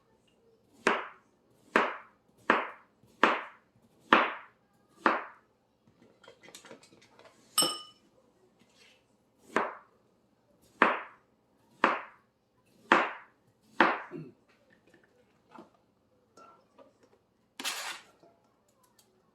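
Kitchen knife chopping a peeled canary melon into chunks on a cutting board: a run of about six chops, a pause with a single ringing clink, then about five more chops. A short hiss follows near the end.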